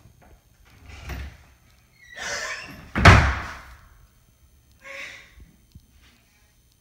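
Wooden interior door being worked by hand at its knob, with a few knocks and rattles. The loudest is one hard thump on the door about three seconds in, and a softer one follows near five seconds.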